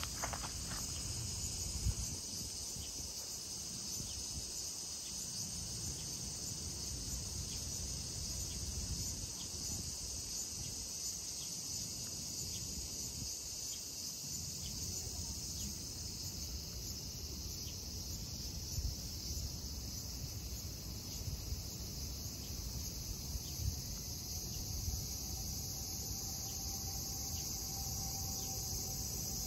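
A steady, high-pitched chorus of insects chirring in the grass, with a low rumble underneath.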